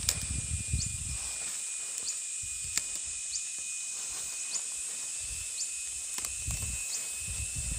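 Steady high-pitched insect drone, with short chirps repeating about once a second, over low rumbling that is strongest at the start and end.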